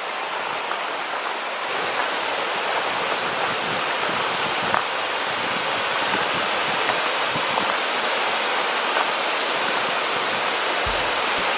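Steady rush of water from a waterfall, an even hiss that does not let up.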